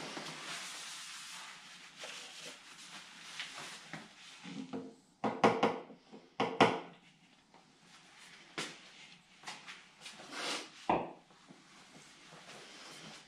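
Handling noise as a plastic funnel is set into a scooter's fuel filler and taken out again. A soft hiss at the start, then several knocks and short clatters. The loudest two come about five and a half and six and a half seconds in, with a sharp click near eleven seconds.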